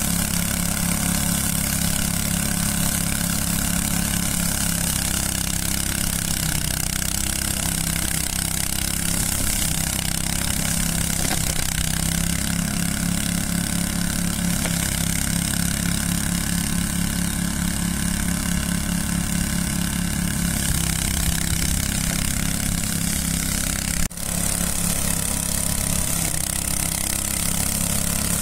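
Small petrol engine of a radio-controlled mower running steadily in long grass. The sound drops out for an instant near the end and picks up again.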